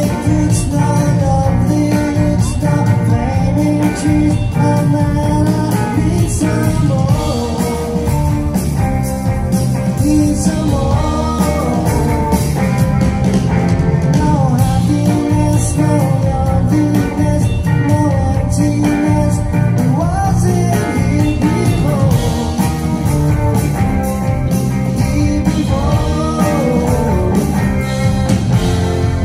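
Live rock band playing a song over the hall's PA: electric guitars, drums, bass and keyboards, with a lead vocal line.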